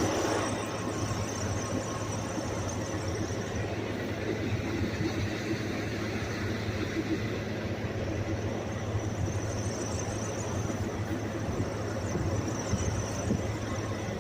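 Diesel truck engine idling with a steady low drone.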